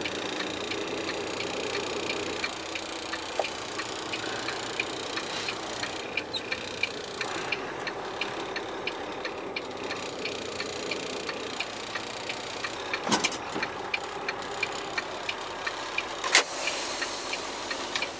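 Semi-truck's diesel engine running, heard from inside the cab, with the hazard flashers ticking steadily. There is a louder knock about 13 seconds in and another about 16 seconds in.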